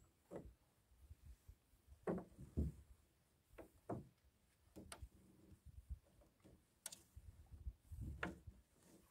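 Quiet, irregular soft knocks and rustles of a gill net being hauled by hand over the side of a small boat, the net knocking against the hull as it comes in, about eight knocks in all.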